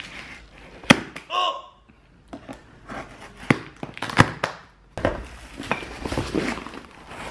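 A knife cutting through the plastic strapping and packing tape of a cardboard box, giving several sharp snaps, then the cardboard flaps and plastic wrapping rustling as the box is pulled open from about five seconds in.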